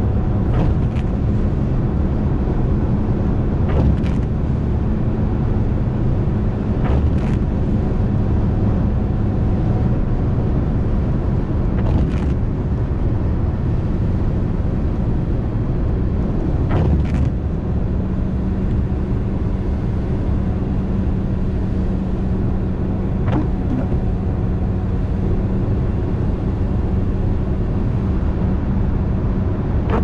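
Steady road noise inside a moving car at speed: tyre and engine drone with a low hum that grows stronger about halfway through. A few brief swishes come and go along the way.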